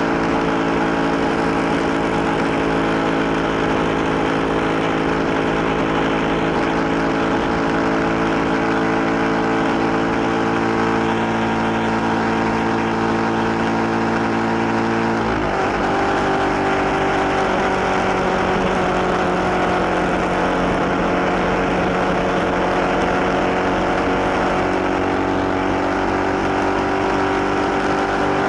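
Yamaha MT 125's single-cylinder four-stroke engine running steadily at road speed under way. About halfway through its pitch drops suddenly, then climbs slowly again.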